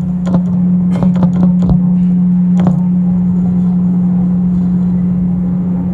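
Steady low drone from a live experimental electronic music performance, with scattered clicks and knocks over it during the first three seconds.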